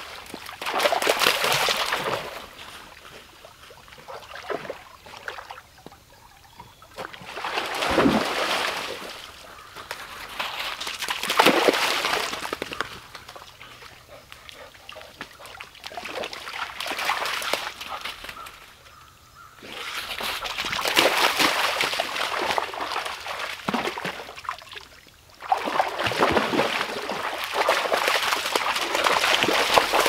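Dogs splashing and running through a shallow creek: about six bursts of sloshing and splashing water, each a second or a few long, with quieter stretches between.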